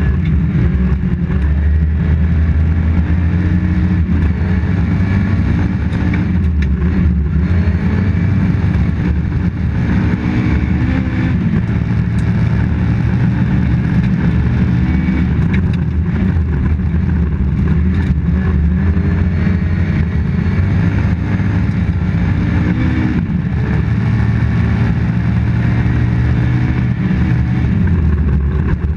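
Toyota Corolla GT rally car's engine heard from inside the cabin, running hard at high revs. Its pitch rises and drops several times with throttle and gear changes, over steady tyre and road noise.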